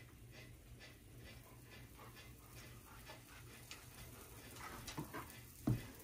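Quiet kitchen sounds as batter is poured into a hot cast-iron waffle iron: faint, regular ticking a few times a second, a few light knocks near the end, and one dull thump shortly before the end.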